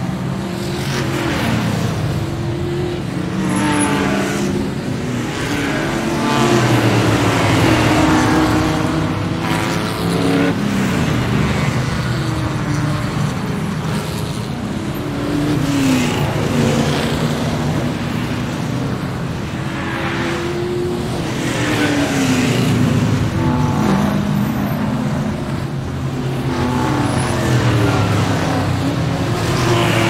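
Formula One car engines revving and passing, several at once, their pitches overlapping and rising and falling without a break.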